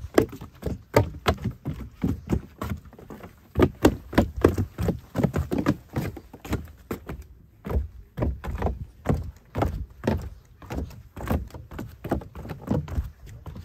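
Footsteps in foam clogs going down wooden deck stairs and along wooden decking: a steady run of hollow thuds, two or three a second, with a short break a little past halfway.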